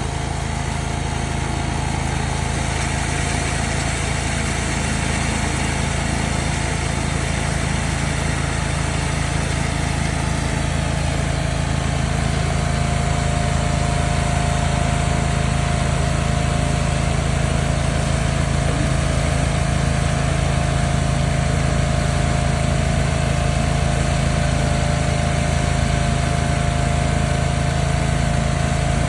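Engine of a remote-control laser screed running steadily as it screeds fresh concrete, a constant small-engine hum that gets a little louder about halfway through.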